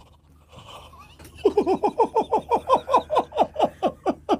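A man laughing hard: after a short lull, a fast run of 'ha-ha-ha' bursts, about six a second, each falling in pitch, starting about a second and a half in.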